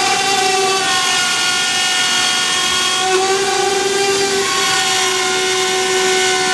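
High-speed power tool cutting through solid fiberglass boat hull, a loud steady whine whose pitch dips and recovers slightly as the cut loads the motor.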